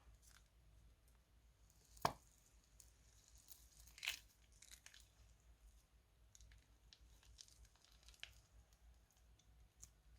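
Crunchy slime being handled: faint, scattered crackling and clicking, with a sharp click about two seconds in and another about four seconds in.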